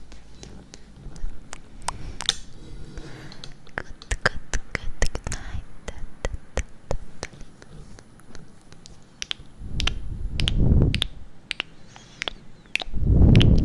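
Close-miked ASMR trigger sounds: sharp, irregular clicks and taps, several a second, with two low rushing swells, one about ten seconds in and one near the end.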